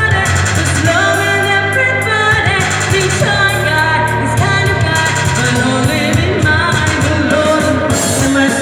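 A woman singing a pop song live into a microphone, backed by an electronic keyboard with sustained bass notes.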